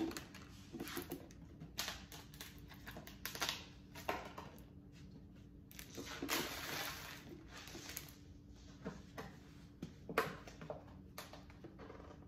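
Bottles and jars being handled and set down on a pantry shelf: scattered light clicks and knocks, with a short stretch of rustling about six seconds in.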